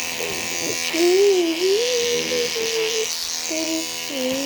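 Electric toothbrush buzzing steadily. A wavering, melodic pitched sound rides over it, loudest about a second in.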